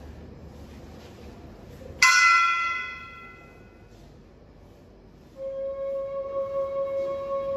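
Opening of the dance's accompaniment music: a single bell-like struck note about two seconds in that rings and fades, then a long held flute-like note from about five seconds in.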